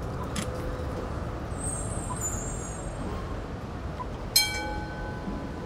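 Steady rumble of a tram and traffic on a wet city street, with a brief high squeal about two seconds in and a sudden bright ring about four seconds in.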